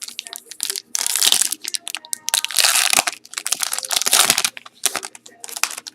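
Crinkling and crackling of a trading card pack's wrapper being torn open and handled, loudest in the middle of the stretch.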